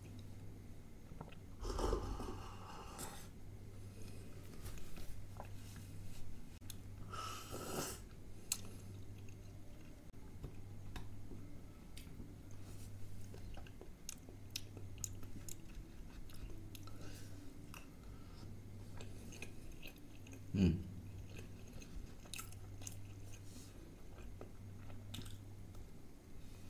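Close-up eating sounds: chewing and crunching food, with short clicks of a spoon against steel bowls. Two slurps from a small steel bowl come about two and seven seconds in, and a sharper knock about 20 seconds in. A steady low hum runs underneath.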